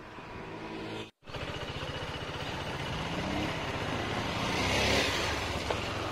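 Motorcycle engine running while riding, rising in pitch as it accelerates about two to three seconds in, with a rushing noise that swells about five seconds in. The sound cuts out completely for a moment about a second in.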